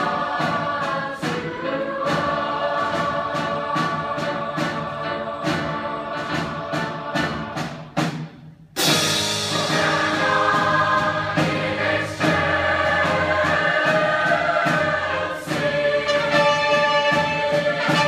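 School choir singing with musical accompaniment and a steady beat; the music breaks off briefly about eight seconds in, then starts again.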